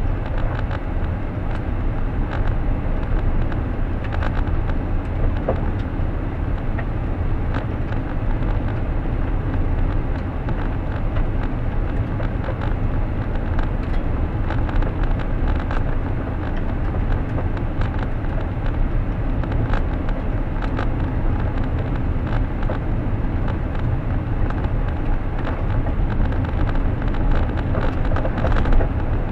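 Car driving along, with steady road and engine noise heard from inside the cabin and many small ticks and clicks scattered through it.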